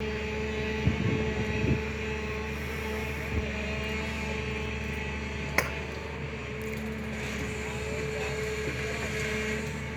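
SANY excavator's diesel engine running steadily, with a few short sharp knocks in the first half.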